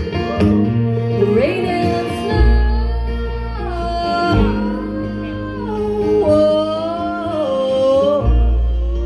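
Live bluegrass band music: acoustic guitar and upright bass under a lead line that slides and bends between notes.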